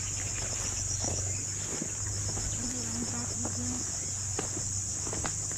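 A steady, high-pitched chorus of forest insects, with a few footsteps on a dirt path near the end.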